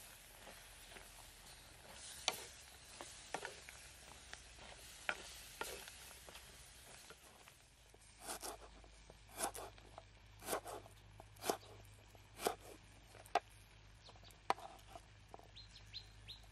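Light, scattered knocks, then a knife chopping vegetables on a wooden cutting board. The chopping comes in sharp strokes of about one a second for most of the second half.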